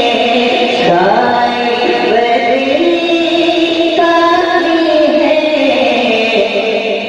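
A young man singing an Urdu naat into a microphone, in long held notes that slide and step from pitch to pitch.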